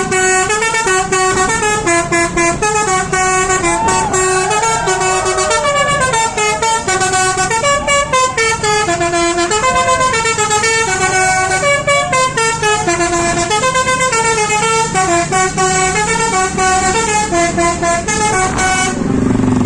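Basuri "telolet" musical bus horn playing a long tune, its notes stepping up and down about two to three a second. It stops about a second before the end, leaving a low rumble.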